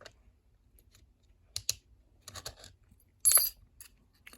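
Small metal parts of a disassembled lever padlock clicking and clinking as they are handled and set down, with a double click about one and a half seconds in and the loudest short clatter a little after three seconds.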